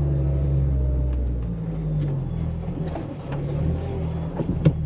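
Off-road SUV's engine labouring in soft sand on a dune climb. Its steady drone falls off after about a second and a half and then rises and falls, with scattered knocks and one sharp thump near the end.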